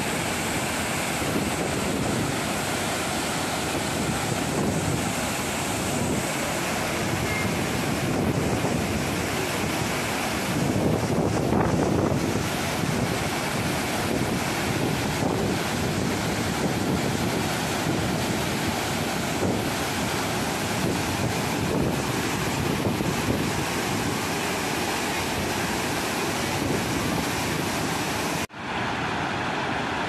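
Waterfall in heavy flow after typhoon rain: a steady, loud rush of falling water. The sound drops out for a moment near the end and carries on.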